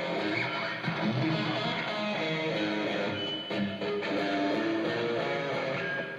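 A rock band playing an instrumental passage, with guitar to the fore.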